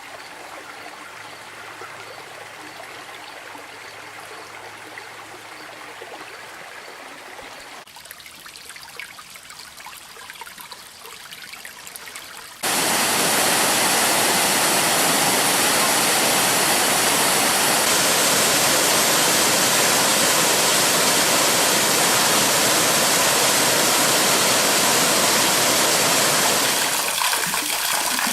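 Flowing water of a creek and waterfall: a quieter, trickling stream for about the first twelve seconds, then an abrupt change to a much louder, steady rush of falling water, easing slightly near the end.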